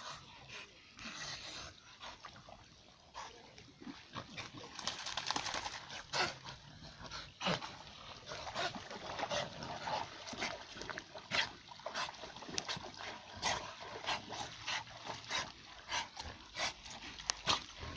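American Staffordshire terriers playing in shallow lake water: dog sounds and splashing come as a run of short, irregular noises that grow busier from about four seconds in.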